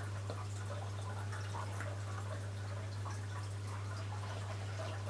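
Wet mouth clicks and smacks of a hard lollipop being sucked and tasted, faint and scattered, over a steady low hum.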